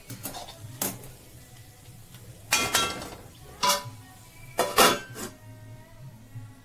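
Steel spatula clinking against an aluminium kadai of fried chicken, then a steel lid clanking onto the pan: several sharp metal clanks, each left ringing.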